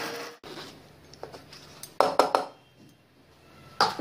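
Electric mixer grinder, grinding biscuits to powder, winds down and stops within the first half-second. Then a few sharp clicks and knocks of the plastic lid and stainless steel jar being handled and opened, about two seconds in and again near the end.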